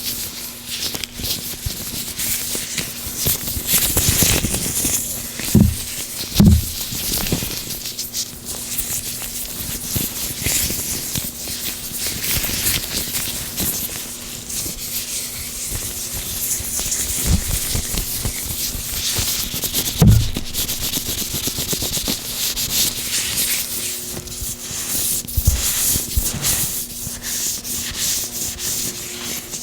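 Gloved hands rubbing and working oil, a continuous rustling, slick rubbing with a few low thumps scattered through it.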